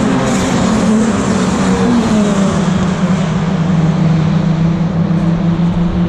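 BTCC touring cars' 2.0-litre turbocharged four-cylinder engines running on the circuit. Several engine notes fall in pitch over the first two seconds, then a steady engine drone holds.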